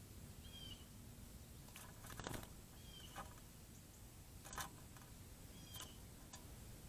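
A bird's short, curved chirp repeated about every two and a half seconds, faint, with a few brief taps in between.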